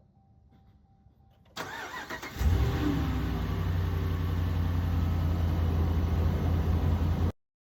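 2014 Ram 1500's 5.7-litre Hemi V8 being started after an oil change: the starter cranks briefly, the engine catches with a short rev, then settles into a steady idle. The sound cuts off suddenly near the end.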